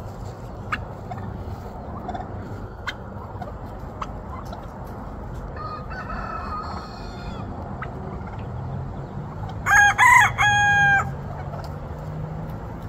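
A rooster crows once, about ten seconds in: a loud call broken into a few short parts and ending on a longer held note. A fainter, shorter bird call comes a few seconds earlier.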